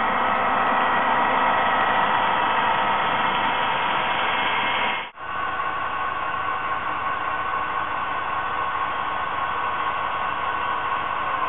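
HO-scale model train running: a steady hissing, whirring drone with a faint whine from the diesel locomotives' motors and the cars rolling on the track. The sound cuts out for an instant about five seconds in, then carries on.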